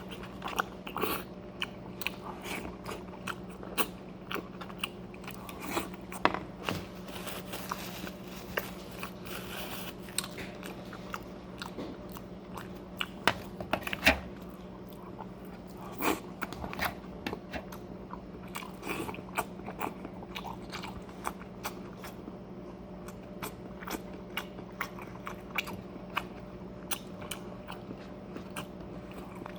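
A person chewing and biting into crunchy food close to the microphone: a run of short crunches and mouth clicks, with a faint steady hum underneath.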